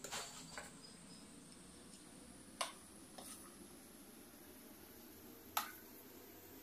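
Food being served onto a ceramic plate: a few short, sharp knocks of the serving utensil against the plate, about three seconds apart, over a low steady room hum.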